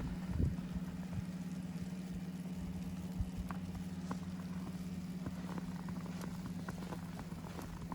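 Steady low mechanical hum, like an idling engine or machinery running nearby, with a few faint crunches of footsteps in powdery snow.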